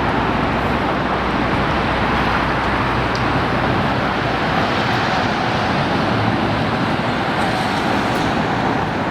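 Steady rushing and rumbling noise of a moving vehicle, with no breaks or single events standing out.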